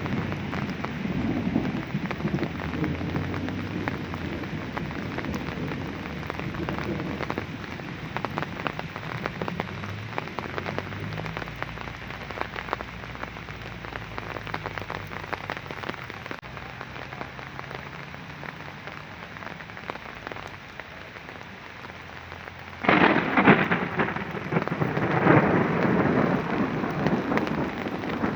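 Steady rain falling, with many drops pattering and a low rumble of thunder fading over the first several seconds. About five seconds before the end, a much louder burst of noise breaks in suddenly and carries on.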